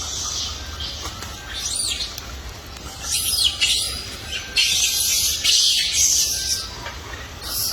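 High-pitched chirping animal calls, each rising and falling, with stretches of harsh, hissing high sound in the second half.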